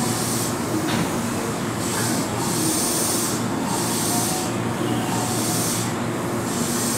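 Keihan 7200-series electric train standing at the platform, its onboard equipment humming steadily, with a high hiss that swells and fades about once a second.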